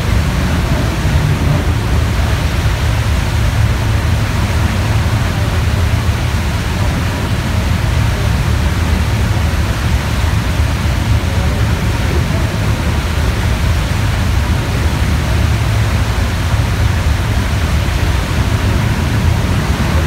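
Steady loud rushing of a frigate's churned-up stern wake while the ship is under way at speed, with a heavy low rumble beneath it.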